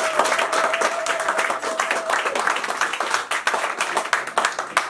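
A small group of people clapping, a dense, irregular patter of hand claps. A single steady high tone is held over the first two seconds.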